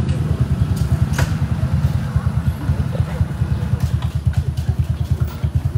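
An engine idling with a rapid, even low throb.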